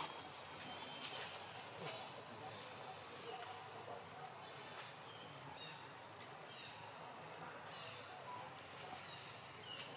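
Faint outdoor ambience: a steady background hiss with scattered short, high chirps. There are a few soft rustles or clicks in dry leaves in the first two seconds.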